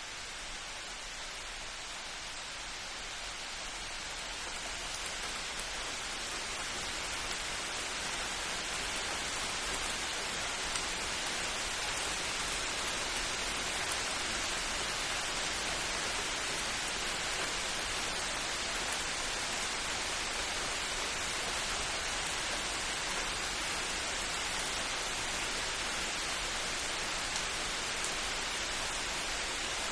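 Steady rain falling, an even hiss of drops that grows a little louder over the first several seconds and then holds steady, with no clear thunderclap.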